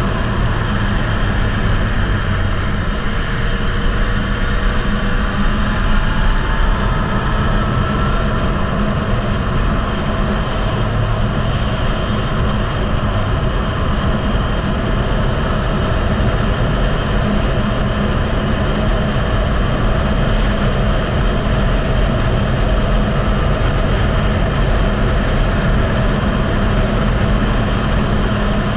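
Heavy wind noise on the microphone of a Yamaha MT-09 at track speed, with the bike's three-cylinder engine running underneath, its note rising faintly now and then.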